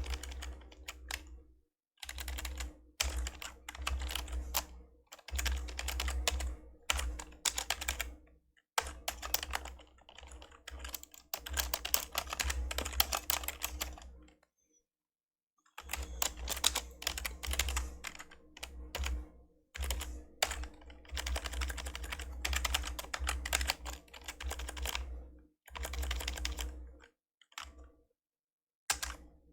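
Fast typing on an old membrane keyboard: dense runs of key presses in bursts, broken by short pauses, the longest about halfway through.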